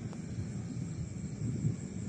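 Wind buffeting the microphone: an uneven low rumble that flutters and gusts.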